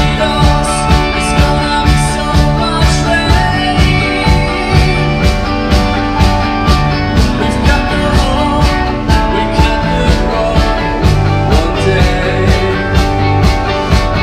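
Rock band playing live: electric guitars, bass guitar and drums, with the drums keeping a steady beat.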